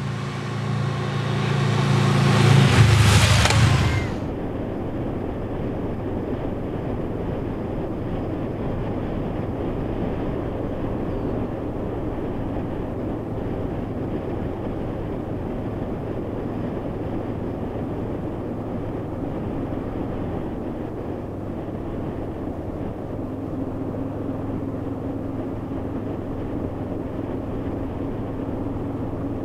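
Honda VFR800 V4 motorcycle approaching and passing close by, its engine note rising to its loudest about three seconds in. It cuts off suddenly near four seconds to a steady onboard mix of engine hum and wind noise while riding.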